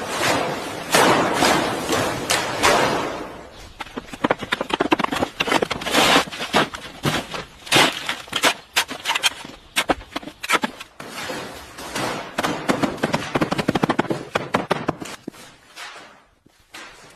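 A dense, irregular run of overlapping knocks, cracks and thuds, busiest at the start and again past the middle, thinning out near the end.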